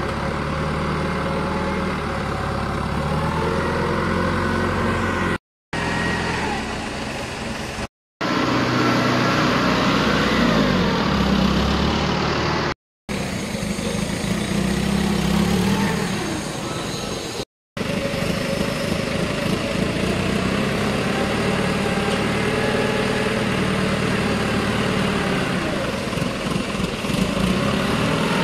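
Forklift engine running and revving up and down as the forklift works, broken four times by brief drops to silence.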